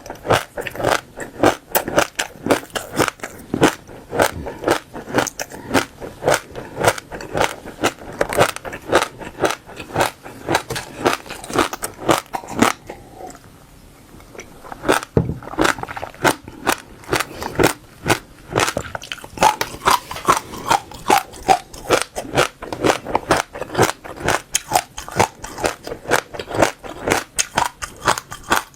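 Passion fruit seeds crunched between the teeth close to the microphone: a quick run of crisp cracks, several a second, with a pause of about two seconds near the middle.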